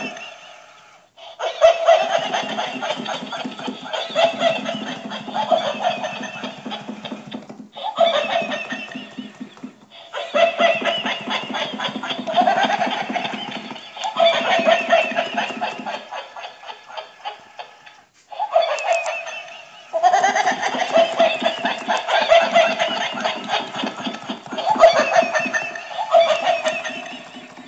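Laughter in long, continuous bouts, stopping for short breaths about a second in, around 8 and 10 seconds, and again about 18 seconds in.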